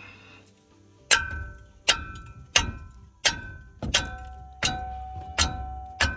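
Eight evenly spaced metal-on-metal strikes, about 0.7 s apart, each with a short ringing clang. They sound like a tool being hammered to break loose a very tight bolt on the brake assembly.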